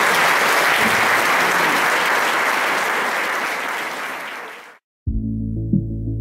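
Audience applauding, fading out about three-quarters of the way through. After a brief silence, music with steady low tones starts near the end.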